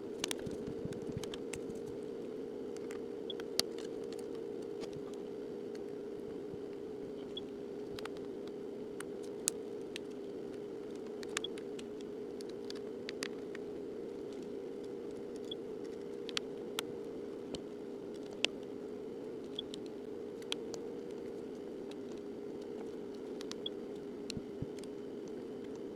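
Steady low hum with scattered small, sharp clicks and taps, typical of handling and snapping together small phone parts during reassembly.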